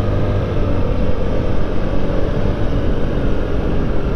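Yamaha Gear 50 cc four-stroke scooter running at cruising speed, its engine drone mixed with steady wind rush and road noise.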